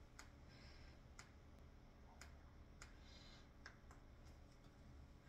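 Near silence: room tone with a handful of faint, sharp clicks scattered through it, roughly one a second.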